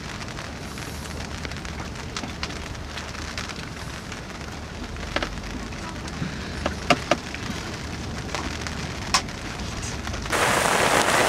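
Wind noise on the microphone with scattered sharp ticks of the first raindrops hitting the boat. About ten seconds in, a sudden switch to the loud, dense hiss of a heavy downpour.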